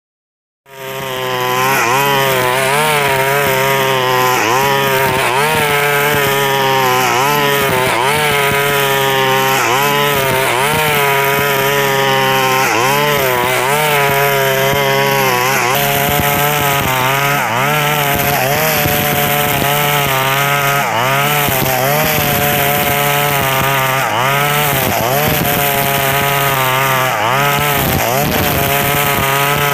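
KNC 4400 brush cutter's two-stroke engine running loud at high speed, starting about a second in, its pitch dipping and recovering every second or so as the line cuts into tall grass. The exhaust muffler is rusted through with small holes, which gives it a loud warship-like drone.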